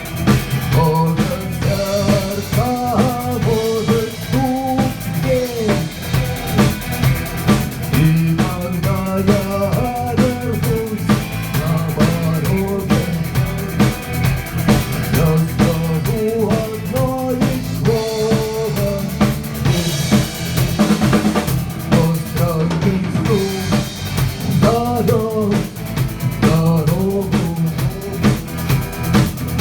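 A rock band playing with a full drum kit beat of bass drum, snare and rimshots, and a bending melodic lead line over it.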